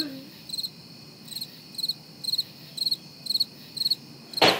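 Field crickets chirping in a steady, regular rhythm, about two short pulsed chirps a second: the stock "crickets" sound effect for an awkward silence. A brief sharp noise comes just before the end.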